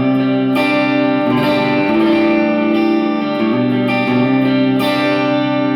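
1996 Ibanez Talman electric guitar played through its Lambertone Crema humbucker in full-humbucker mode, coil tap off: ringing chords that change a few times, freshly strummed about half a second in and again near the end.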